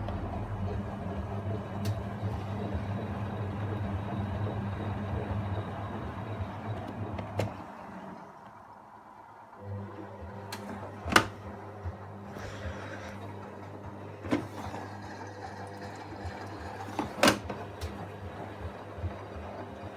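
Hoover washing machine's drum motor humming steadily during a wash, stopping about seven and a half seconds in and starting again about two seconds later as the drum turns the other way. A few sharp knocks follow after it restarts.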